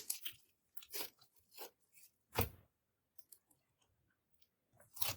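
Clear slime being squeezed and stretched by hand, giving irregular wet crackles and pops. The loudest comes about two and a half seconds in, and another just before the end.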